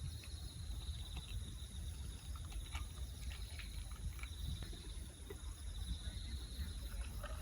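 Outdoor ambience: an insect trilling in a fast, pulsing high note that fades in and out, over a steady low rumble, with a few faint clicks.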